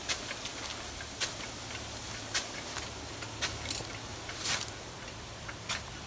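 Nelson SR150 big-gun irrigation sprinkler running under high pressure: a steady hiss of spray and falling water, with a sharp tick about once a second as the gun's swinging drive arm strikes.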